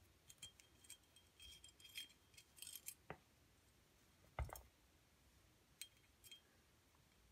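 Faint small metallic clicks and scrapes of a 3/32 Allen wrench working the rear sight plate screws out of a Sig Sauer P320 slide, with a soft knock about three seconds in and a firmer knock about a second later, then a few light ticks.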